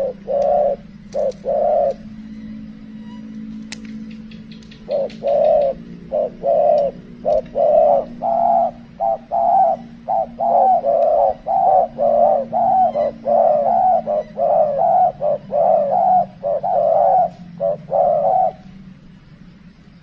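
Spotted doves cooing: two coos near the start, then after a pause of about three seconds a long run of short repeated coos, roughly two a second, which stops a second or so before the end. A low steady hum runs underneath.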